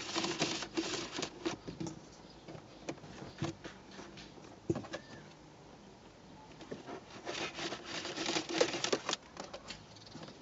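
Handling noise from a cable being worked through an opening in a car's plastic dashboard trim: a flurry of rustling and clicking at the start, a few single knocks, then another flurry near the end.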